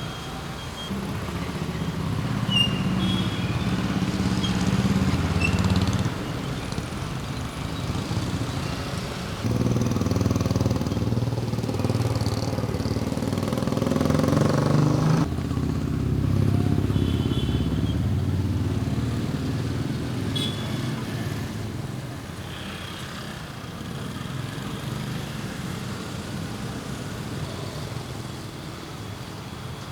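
Street traffic: motorcycles and small cars passing with their engines running, over a steady street hum. The sound jumps abruptly in level a few times, near 6, 10 and 15 seconds in, and grows quieter for the last several seconds.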